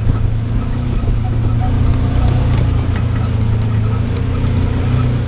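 A vehicle engine running at a steady, unchanging speed, heard from inside the cab while driving over dirt, with a few faint clicks and rattles.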